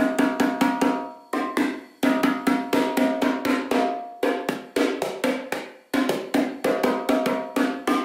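A pair of freshly tuned animal-skin bongos played by hand in a quick, busy rhythm, each stroke ringing with a clear pitch; one head is tuned to G. The playing stops right at the end.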